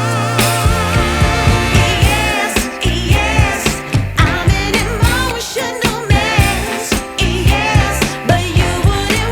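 Background music with a steady beat and a vibrato-laden sung melody.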